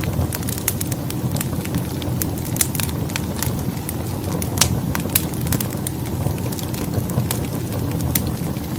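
Wood fire burning in a fireplace: a steady low rumble of flames with frequent sharp, irregular crackles and pops from the logs.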